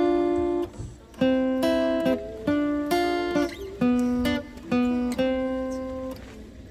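Background music: acoustic guitar strumming chords, each struck sharply and left to ring, fading out near the end.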